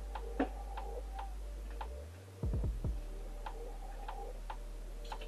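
Light, irregularly spaced clicks of a ratchet wrench working on the cylinder-head nuts of a Motobécane AV89 two-stroke moped engine, over a steady low hum.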